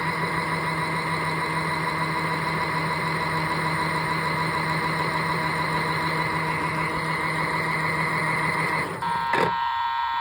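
Small battery-powered toy washing machine running, its motor whirring steadily as the drum turns. About nine seconds in the motor stops and an electronic beep sounds for about a second, then cuts off.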